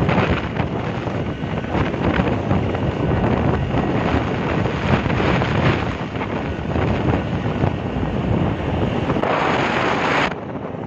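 Wind buffeting the microphone of a vehicle moving at speed, mixed with road and engine noise; it eases briefly near the end.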